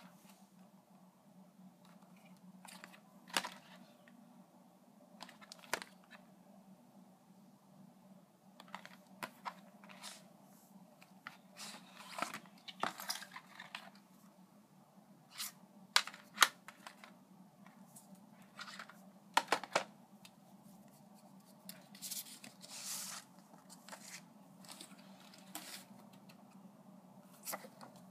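Hands handling a plastic CD jewel case and its paper and card inserts: scattered clicks, taps and rustles, with a longer scratchy rustle a little after the middle. A faint steady low hum runs underneath.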